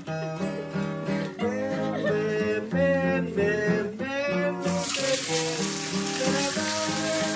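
Strummed and plucked guitar music plays throughout. About two-thirds in, a loud, steady sizzle of hot oil frying starts as a whole mojarra fish goes into the pan.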